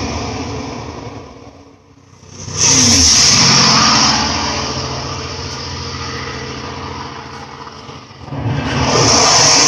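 A motor vehicle's engine sweeping past in a 3D sound-effects recording. It fades away, comes back suddenly loud about two and a half seconds in and slowly eases off, then surges loud again near the end.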